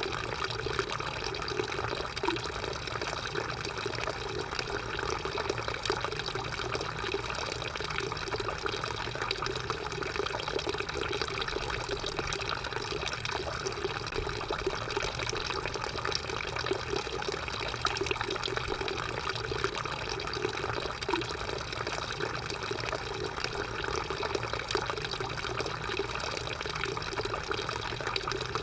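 Drinking fountain running: a steady stream of water splashing and trickling, unchanging throughout.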